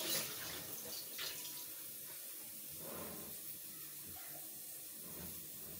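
A steady hiss with a few faint knocks, one near the start, one about a second in and one about three seconds in.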